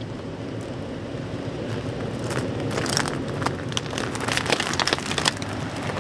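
Toyota 4x4 crawling slowly over a dirt trail, its engine a low steady rumble growing louder as it approaches. From about two seconds in, the tyres crunch and crackle over dirt, small stones and dry sticks.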